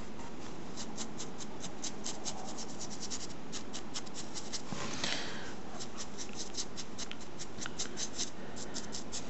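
Small paintbrush dry-brushing a miniature terrain wall: quick, irregular scratchy strokes of the bristles over the textured surface, with a longer scrape about halfway through, over a steady background hiss.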